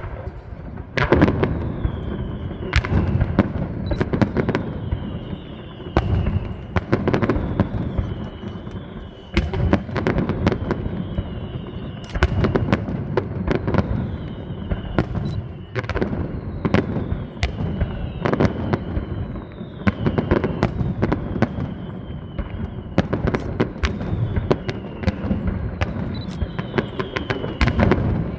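Aerial fireworks display going off in dense succession: rapid sharp bangs and crackles with rumbling echoes, over which whistling tones falling in pitch repeat every couple of seconds.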